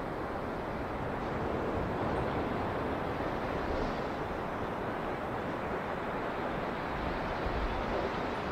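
Waves breaking on a beach: a steady, even wash of surf with no single crash standing out.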